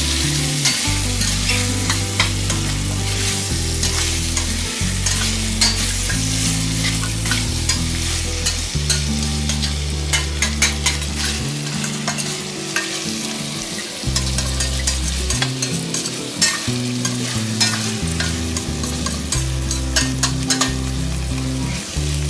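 Marinated chicken pieces sizzling as they fry in a pan. A spatula stirs them, with frequent sharp clicks and scrapes against the pan.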